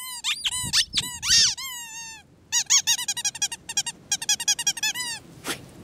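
Squeaky dog toy squeaked over and over: a few separate high squeaks, then quick runs of about eight squeaks a second that stop shortly before the end.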